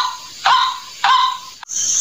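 White-breasted waterhen calling: a loud note repeated about every 0.6 s, each sliding quickly down into a held, nasal tone. A brief dropout near the end breaks the series.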